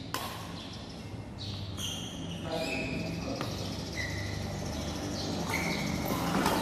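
Badminton rally: shoes squeak on the court floor in short, high chirps, and there are sharp racket hits on the shuttlecock, one near the start and another about three seconds later.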